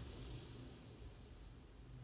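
Faint wash of floodwater settling and fading as a van drives through a flooded ford, over a low steady rumble.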